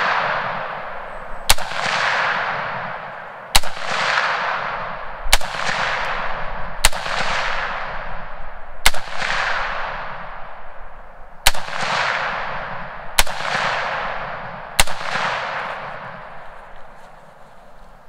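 A PSA AR-10 semi-automatic rifle in .308, with its standard A2 birdcage flash hider, fires eight single shots at a slow, steady pace about two seconds apart. Each sharp report is followed by a long, fading echo.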